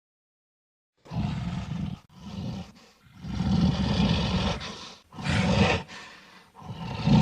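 Monster roar sound effect: after about a second of silence, a series of deep, rough roars, the longest lasting about two seconds, each breaking off and starting again.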